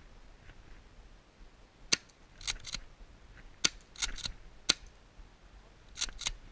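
Tokyo Marui M870 gas airsoft shotgun fired three times, each sharp crack followed by a quick double click as the pump is racked back and forward.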